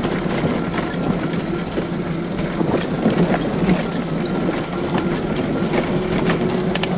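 Car engine running and tyres rolling over a gravel road, heard from inside the cabin, with scattered clicks and rattles from the rough surface.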